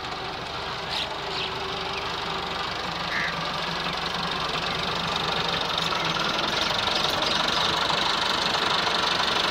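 Massey Ferguson 385 tractor's four-cylinder diesel engine running steadily under load as it pulls a 13-tine cultivator, growing louder as the tractor comes closer.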